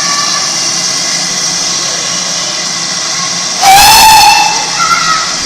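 Steam locomotive hissing steadily, then one short whistle blast about three and a half seconds in.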